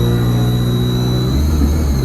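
ADL Enviro 200 bus's diesel engine running, with a loud, high, steady turbocharger whistle over the low engine drone.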